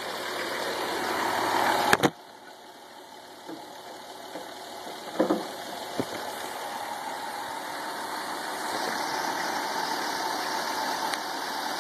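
Chrysler 3.3 L V6 engine idling steadily under the open hood, with a few sharp clicks over it, the loudest about two seconds in.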